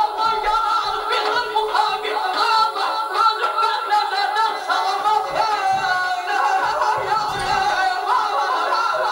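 A man singing a wavering, ornamented folk melody into a microphone, with a wind instrument playing along.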